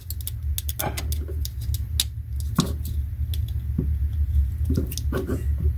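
Irregular sharp clicks and snaps of a wire stripper's jaws and handles being worked on a wire for a splice, over a steady low hum.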